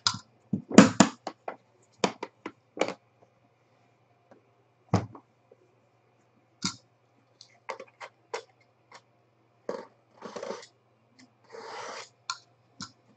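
Sharp clicks and knocks of hands handling an aluminium card case, its metal latches and panels, the loudest cluster about a second in, with a couple of short scraping rustles near the end.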